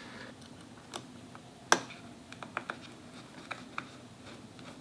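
Light, scattered clicks and taps from hands working on small parts inside an open laptop, with one sharper click just under two seconds in.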